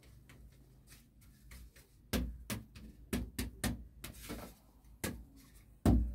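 Hand-held flour sieve being tapped and knocked to sift flour into a basin: a quick run of sharp knocks from about two seconds in, a brief hiss just after four seconds, and louder thumps near the end as the sieve is handled.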